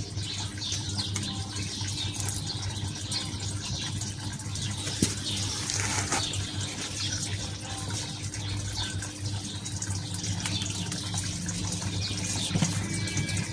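Steady rushing of running water under a low steady hum, with small birds chirping.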